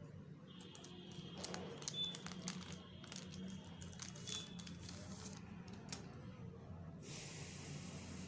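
Faint crinkling and scattered light clicks of packaging being handled as the phone is taken out of its box, with a short rustle near the end.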